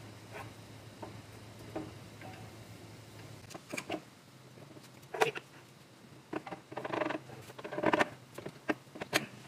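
Scattered light clicks and knocks of metal parts being handled and fitted at a rear axle hub and brake backing plate, a few early and more clustered in the second half.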